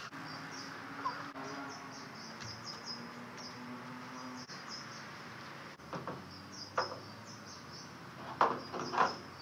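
Wooden 2x4 frame knocking several times against the truck as it is fitted into the doorway, loudest near the end, over steady high chirping and a low hum.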